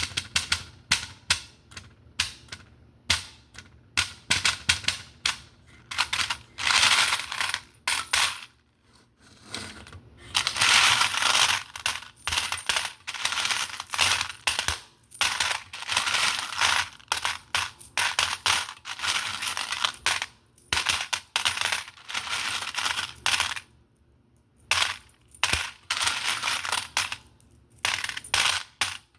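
ASMR trigger noises made by hand: a fast, uneven run of sharp taps and metallic clinks, broken by several longer rattling stretches of a second or two.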